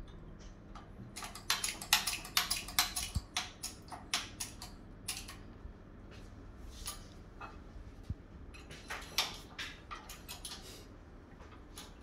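Light metallic clicks and clinks in quick clusters, a dense run in the first few seconds and another toward the end, as a metal embossing die and the parts of a small bottle-jack hydraulic bench press are handled and set in place.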